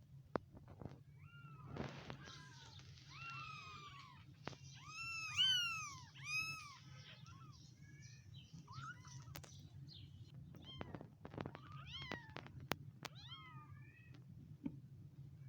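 One-week-old kittens mewing: repeated short, high-pitched arching cries, several overlapping and loudest about five to six and a half seconds in. A steady low hum runs underneath, with a few faint clicks.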